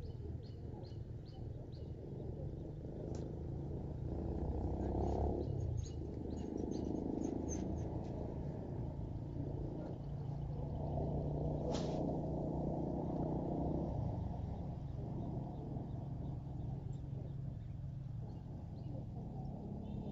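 Steady low outdoor rumble with faint bird chirps, and a few sharp clicks, the clearest about twelve seconds in.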